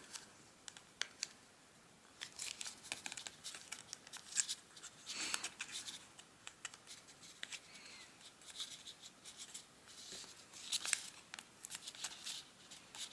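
Origami paper being folded and creased by hand: faint, scattered crinkling rustles and short sharp scrapes as the paper is pressed flat.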